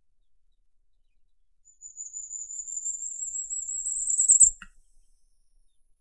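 Firecrest singing one song: a string of very high, thin notes starting about two seconds in, growing louder and rising slightly in pitch for about three seconds, and ending abruptly with a short click.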